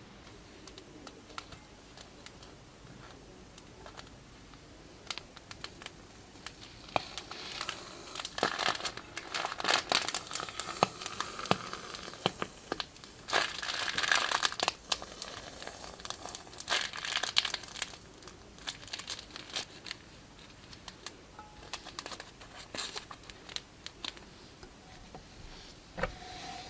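Plastic piping bags crinkling and crackling as they are handled and squeezed. The crackles come sparsely at first, thicken into dense clusters through the middle, then thin out again.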